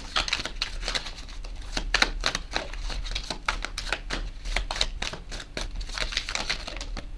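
Tarot cards being shuffled by hand: a steady run of quick, irregular clicks and slaps of card on card.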